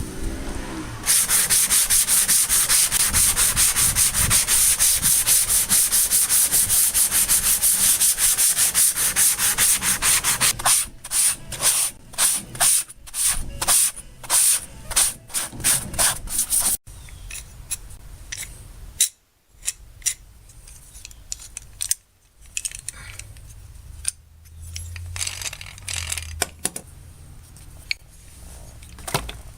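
Hand scrubbing of the tool chest's metal surface with rapid back-and-forth strokes, cleaning off the dried rust-remover residue. About a third of the way in the strokes slow and come one by one, and a little past halfway they stop, leaving quieter scattered handling noises.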